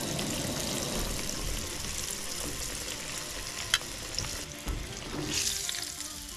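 Fish pieces frying in hot oil in a skillet, sizzling steadily. There is one sharp click in the middle, and the sizzle flares up briefly near the end as the tongs lift a piece out.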